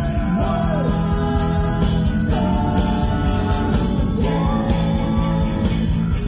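A live rock band playing with electric guitars, bass, drums and saxophone, with voices singing over a steady beat.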